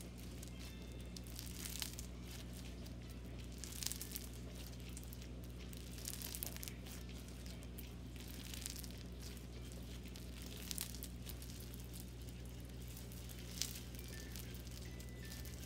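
Crunchy bingsu-bead slime being squished and pressed by hand, giving scattered crisp crackles and crunches.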